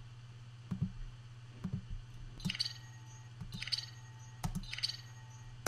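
Short metallic hits from pots and pans, processed through delay and phaser into sci-fi 'future button' beeps, played back a few times about a second apart. Mouse clicks fall between them, over a steady low hum.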